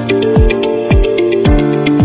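Background electronic music with a steady kick-drum beat, about two beats a second, under sustained synth tones.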